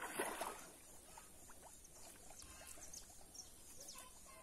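Pond water sloshing and dripping as a cast net is hauled in by hand while wading: a louder slosh at the start, then faint drips and small splashes.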